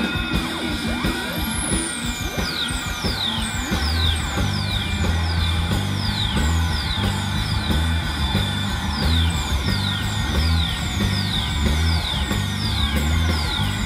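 A rock band playing live, heard from the crowd. A pulsing bass line comes in about three and a half seconds in, under a repeating series of high electronic whistles that each fall in pitch, about one every two-thirds of a second.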